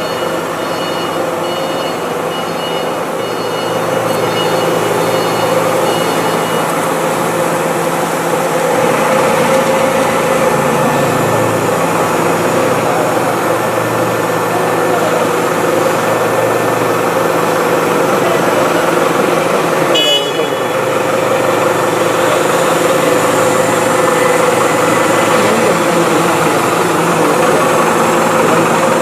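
5-axis CNC router running steadily, its spindle and cutting noise continuous with a held tone through it, and a brief rattle of clicks about two-thirds of the way through.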